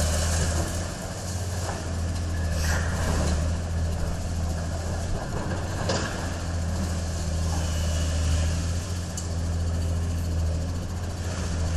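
Tracked hydraulic excavator's diesel engine running steadily, with a few short knocks.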